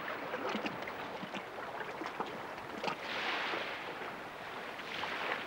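Ocean surf washing onto a sandy beach, a steady rush of water noise that swells louder about three seconds in.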